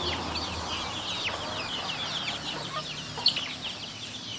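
A flock of domestic chickens foraging, with clucking under a dense, continuous chatter of short, high, falling chirps.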